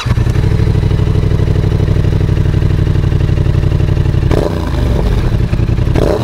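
Yamaha XSR700's parallel-twin engine idling through a Shark SRC 4 aftermarket exhaust with its dB killer fitted, a steady pulsing idle, with a short throttle blip about four seconds in and another near the end.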